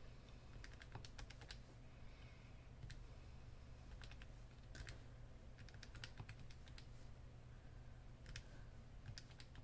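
Faint clicking of the buttons on a Texas Instruments TI-30X IIS scientific calculator as numbers are keyed in, in irregular runs of quick presses.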